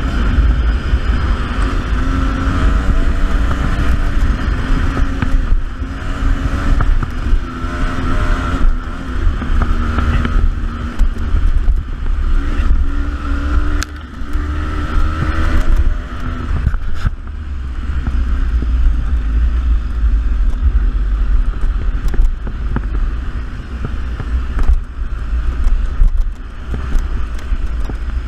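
Beta 300RR two-stroke dirt bike engine being ridden on a trail, revving up and down. From about two-thirds of the way in it runs lower and steadier, over a heavy low rumble.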